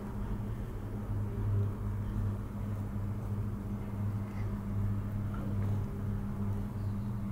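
A steady low mechanical hum, holding one pitch throughout.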